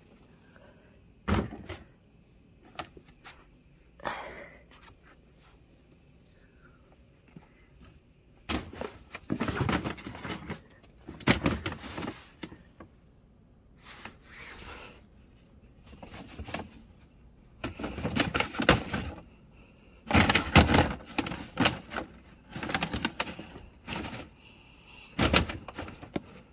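Repeated bursts of rustling and scuffing with a few sharp knocks, from a cat playing with and pawing at a toy next to paper and plastic shopping bags. The noise comes in clusters of a second or two, thicker in the second half.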